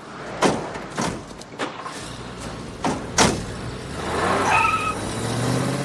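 Car doors shutting with several sharp knocks, then a car engine running and growing louder as the car moves off.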